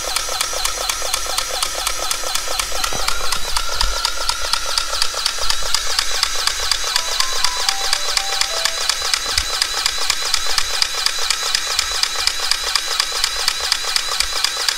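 Cordless DeWalt grease gun running steadily, its pump ticking rapidly and evenly, as grease is forced into the excavator's track adjuster to take up the slack in the track.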